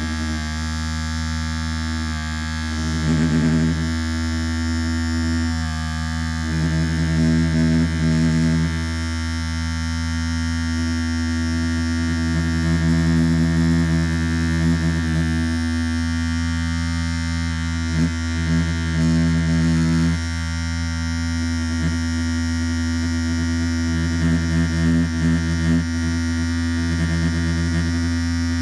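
Electric hair trimmer running with a steady buzz. Its loudness and tone shift slightly now and then.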